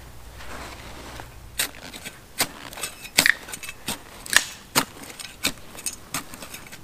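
Digging tool striking and scraping into earth while an air tunnel is dug between the two holes of a Dakota fire pit: a run of sharp strikes, roughly two a second, starting about a second and a half in.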